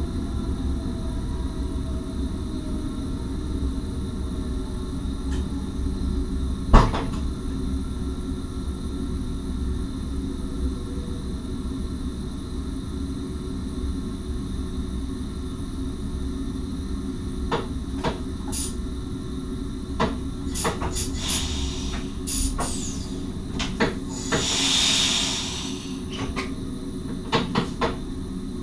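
Inside the cab of an NS SGMM Sprinter electric train: a steady low hum with a faint falling whine near the start, one loud click about seven seconds in, then a run of clicks and knocks in the second half and a short hiss about twenty-four seconds in.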